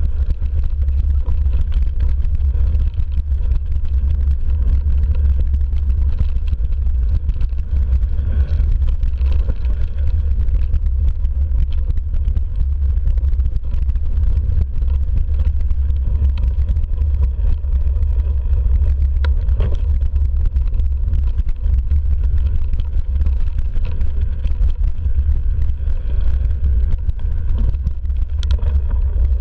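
Mountain bike riding fast down a dirt forest trail, heard through a handlebar-mounted camera: a loud, steady low rumble of wind buffeting and trail vibration, with one sharp click about two-thirds of the way in.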